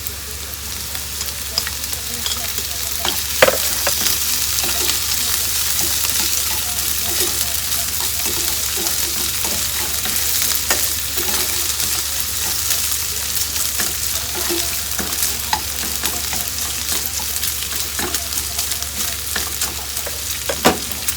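Bacon and maitake mushrooms sizzling in oil in a frying pan as they are stirred, with small clicks of the utensil against the pan and two louder knocks, one about three seconds in and one near the end.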